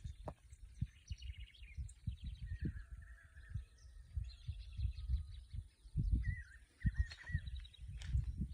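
Birds chirping and calling, with short trills and whistled notes, over frequent low thumps and rumbling.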